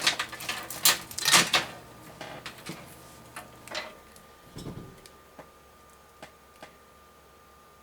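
Fan cables and plastic and metal case parts being handled, a rapid run of clicks, knocks and rustling for the first couple of seconds, then a few faint scattered clicks.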